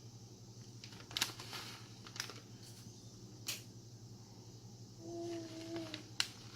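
A few light clicks and taps from handling, as shredded cheese is sprinkled from its bag over the dip in the pan, over a steady low hum. A short hummed note comes about five seconds in.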